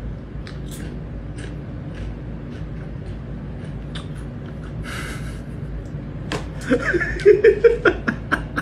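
Kitten moving about and scratching in a litter box of pellet litter: scattered small clicks and rattles of the pellets, with a short rustle about five seconds in. A few short vocal sounds come in near the end.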